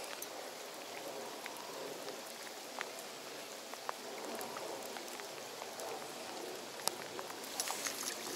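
Steady rain falling on a reservoir's surface: an even hiss of patter with scattered sharper drop ticks, one sharp tick about seven seconds in and a cluster of louder ticks near the end.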